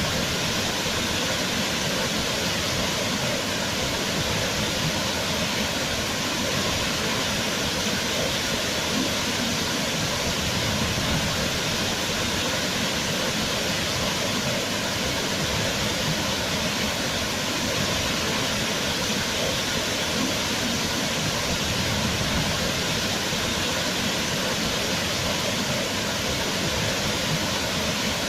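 Waterfall: water falling and rushing in a steady, unbroken roar of noise.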